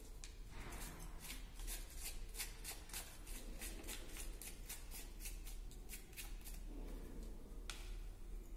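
A small wrapper being tapped and crinkled over a glass flask as solid potassium iodide is shaken into it: a run of light, quick ticks, about three or four a second, then one sharper click near the end.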